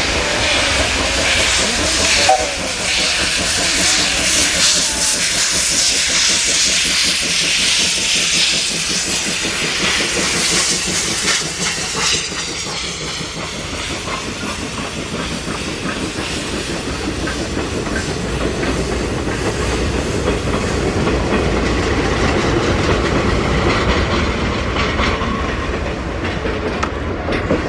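JNR Class 8620 steam locomotive working hard with its cylinder drains open, hissing loudly. After about eleven seconds the hiss dies away, leaving the rumble and clatter of the passenger coaches rolling past over the rail joints.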